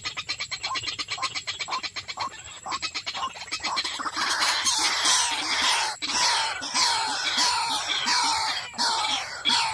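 White-breasted waterhen calling: a fast run of short repeated notes, then from about four seconds in a louder, harsher series of croaking calls repeated about twice a second.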